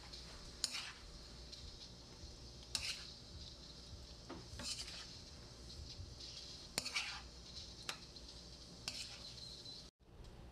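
A spoon stirring sliced round squash in a nonstick frying pan: a scrape and clink against the pan every couple of seconds over a faint sizzle, as the squash fries on residual heat with the burner off.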